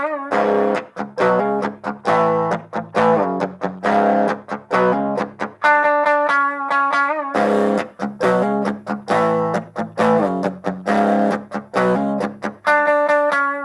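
Electric guitar played through a Marshall mini practice amp, picking a short riff of single notes and chords. The riff repeats about every seven seconds, so it is heard twice.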